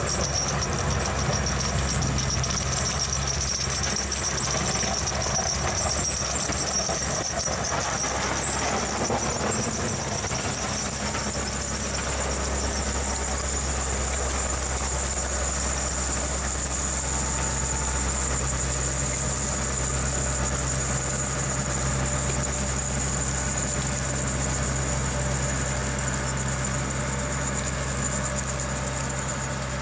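Snow-clearing motor grader's diesel engine running steadily as the machine drives past and moves off, with a steady high-pitched whine above the engine.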